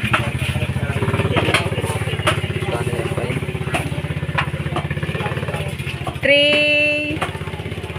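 A small engine running steadily, a close, even low pulsing, with a few scattered clicks. About six seconds in, a horn sounds once for about a second.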